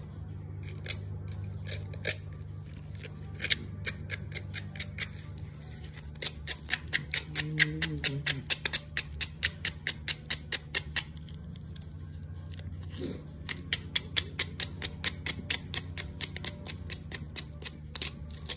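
Sandpaper rubbed back and forth over a rusty steel bolt by hand: quick rasping strokes, several a second, in two long runs with a short pause between, as the rust is sanded off.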